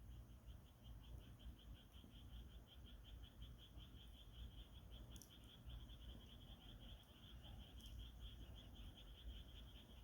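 Faint insect chirping, an even train of high-pitched pulses about five a second, over a low outdoor rumble, with two faint clicks in the middle.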